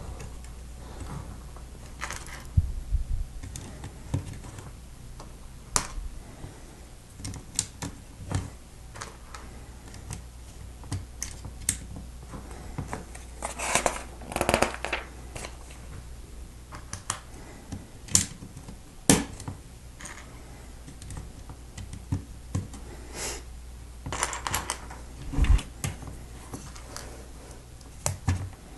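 Plastic Lego bricks clicking as they are pressed together and handled, in irregular single clicks and small clatters, with busier bursts of clicking about halfway through and again near the end.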